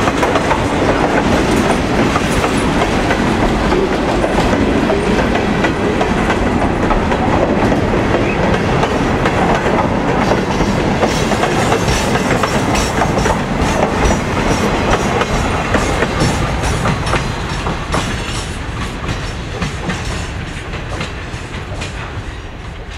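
Freight cars of a passing freight train rolling by: a steady rumble of steel wheels on the rails with rapid clicking. The sound fades away over the last few seconds as the end of the train passes and recedes.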